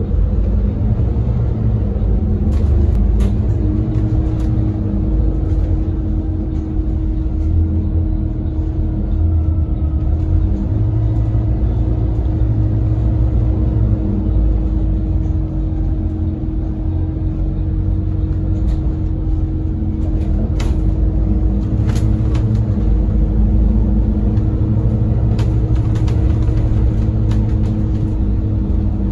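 Inside a Volvo B7RLE bus under way: the steady low rumble of its rear-mounted six-cylinder diesel and the road, with a steady hum joining a few seconds in. A few sharp clicks come near the start and again about two-thirds through.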